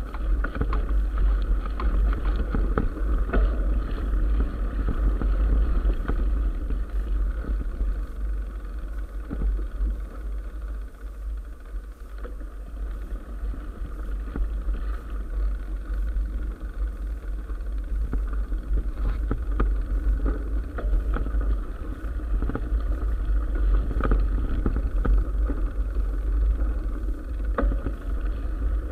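Mountain bike rolling along a gravel track, heard from a camera mounted on the rider or bike: a steady, heavy rumble of wind on the microphone, with tyre crunch on gravel and frequent small clicks and rattles from the bike and mount.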